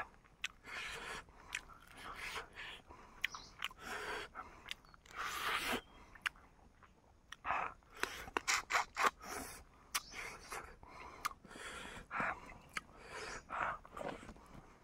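A person chewing and biting cooked chicken close to the microphone: irregular wet chews broken by sharp clicks at uneven intervals.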